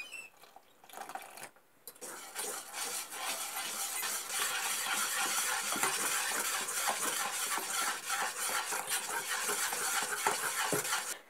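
Wire whisk beating milk into flan mixture in a saucepan: a steady, fast whisking of the wires through the liquid and against the pan, starting about two seconds in.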